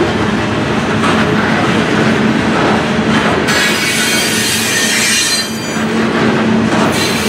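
Grain covered hopper cars rolling past close by, their wheels making a steady rumble on the rails. About three and a half seconds in, a high-pitched wheel squeal rises over it and lasts about two seconds.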